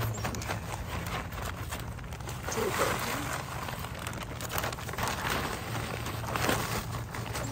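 Potting soil pouring out of a plastic bag onto a tree's root ball, with the bag crinkling and the soil rustling as it falls.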